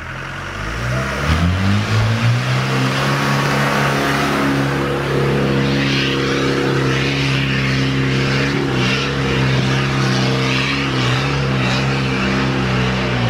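Engine of a caged, modified off-road 4x4 revving up as it pulls away, then held at steady high revs under load as it climbs a muddy slope.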